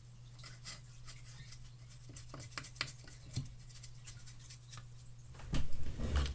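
Paintbrush scratching in short strokes over a wooden birdhouse, with a louder low bump near the end as it is handled.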